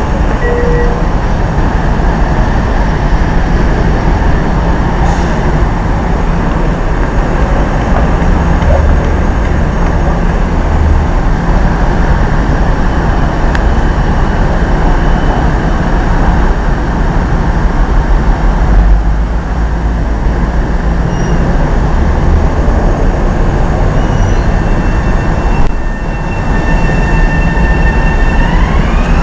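Metro-North M7A electric multiple-unit train running with a loud, continuous rumble. In the last few seconds, steady high whining tones come in and then rise in pitch, like the electric propulsion whine of the train pulling away.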